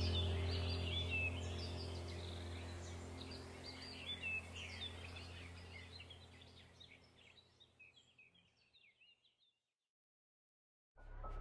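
Birds chirping over a low steady drone, fading out gradually to silence about nine seconds in. A new piece of music begins near the end.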